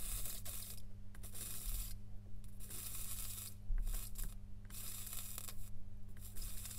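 T12 soldering iron tip dragged across the pins of a surface-mount chip, the flux and solder sizzling in five short hissing bursts, one per pass along the pins. A steady low hum runs underneath.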